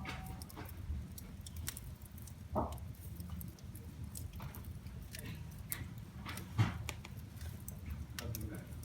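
Wood fire in a fireplace crackling: a scatter of small sharp snaps over a steady low rumble of the flames, with two louder pops, one about a third of the way in and one near the end.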